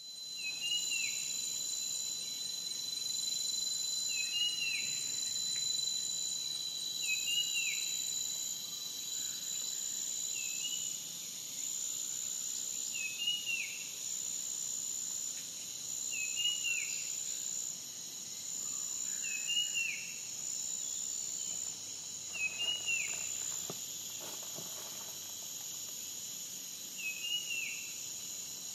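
A steady, high-pitched chorus of crickets trilling, with a short chirping call repeated about every three seconds.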